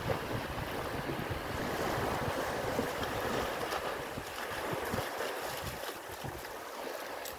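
Small waves washing in on a sandy beach, with wind buffeting the microphone that eases about five seconds in, and a dog splashing through the shallow surf.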